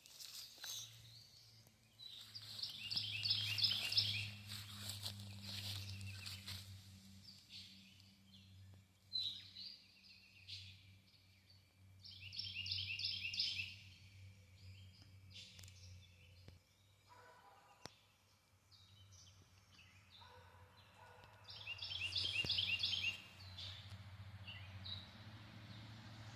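A songbird singing a short phrase of quickly repeated high notes three times, about ten seconds apart, over a steady low hum.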